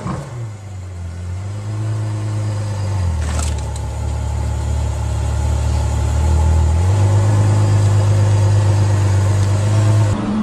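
Ferrari F12berlinetta's V12 engine running at low revs as the car creeps through a tight manoeuvre. Its note steps down about three seconds in and back up about seven seconds in, with a short click near the three-second mark.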